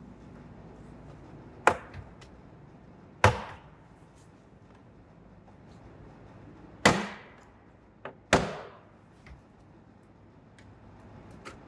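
Plastic retaining clips of a 2013 Kia Rio's door trim panel snapping loose one after another as the panel is pried off the door: four loud, sharp snaps, with a few fainter clicks between.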